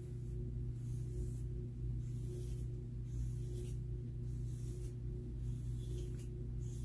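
A comb drawn through thick, damp hair, soft high swishes about once a second, over a steady low hum.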